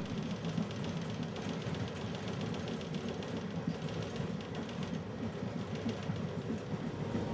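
Moving passenger train heard from inside a sleeper coach: a steady rumble of wheels on the track with fast, even rattling running through it.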